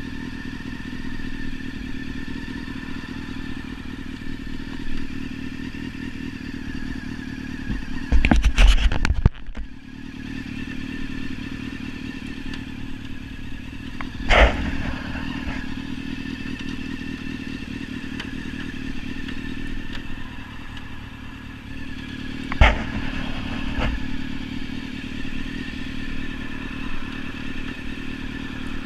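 Sports motorcycle engine running at a steady, unchanging note. A cluster of loud knocks comes about eight seconds in, with single sharp knocks about halfway and three-quarters of the way through.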